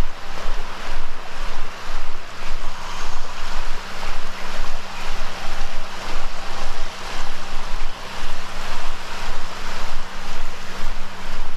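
Surf washing on a sandy beach, with wind noise on the microphone; the loudness swells and dips every second or so.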